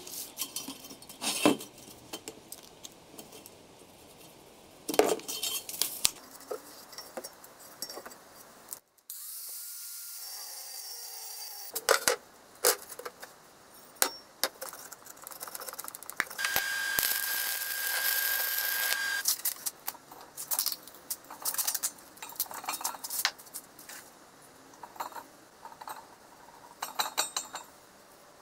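Metal workshop parts being handled: scattered clinks and knocks of steel pieces on a bench, with a power tool running steadily for a couple of seconds about two-thirds of the way through.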